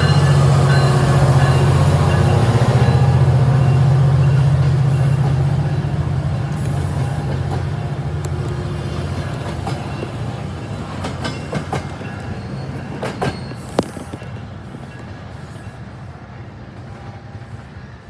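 Metrolink commuter train with an MP36 diesel locomotive running past and away: a loud, low diesel drone that fades steadily as the bilevel coaches roll by. A run of sharp wheel clicks comes about two-thirds of the way through.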